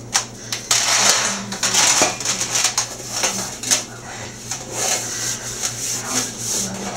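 Fingers rubbing oil over the bottom and sides of a metal cake pan: a continuous scratchy rubbing, broken by small knocks and clicks as the pan is shifted and tilted on a wooden table.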